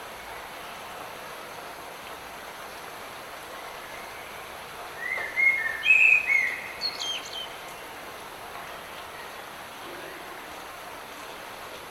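Steady hiss of light rain in a forest, with a bird singing a short burst of chirps and whistles about five seconds in.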